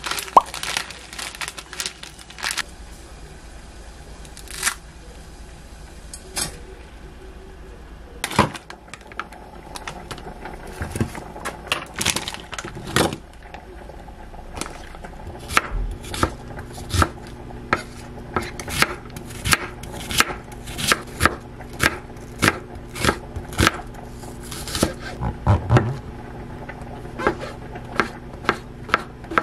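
Kitchen knife chopping on a wooden cutting board, slicing king oyster mushrooms, in a steady run of sharp strokes about two a second through the second half, over a low hum. Before that come scattered rustles and clicks of food packaging and a bowl being handled.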